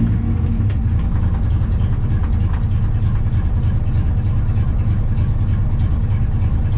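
VW Polo slalom car's engine running steadily while the car stands still, heard from inside the cabin.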